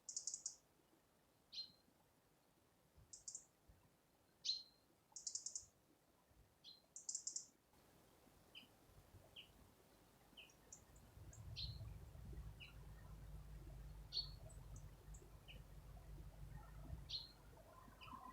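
Small songbirds calling at dawn, faint: scattered short buzzy notes and sharp descending call notes. Partway through, a steady series of short chips about once a second starts over a low, steady rumble.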